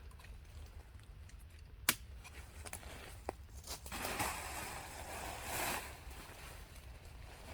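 Handling noises: a sharp click about two seconds in, a smaller click a second later, then a few seconds of rustling.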